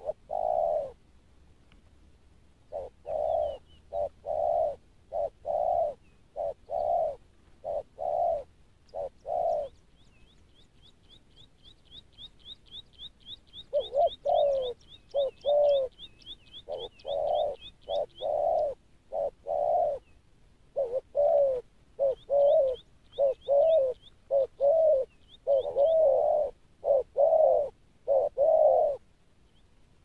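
Doves cooing over and over, in runs of short low coos with a pause of a few seconds partway through. Behind them a smaller bird chirps fast and high, about four notes a second, for several seconds in the middle and again briefly later.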